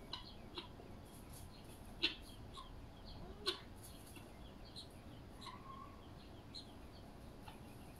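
Male helmeted guinea fowl giving a few short, sharp clucks in the first few seconds, with faint high chirps scattered between.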